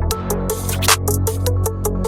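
Electronic background music with a driving drum beat and a heavy bass line.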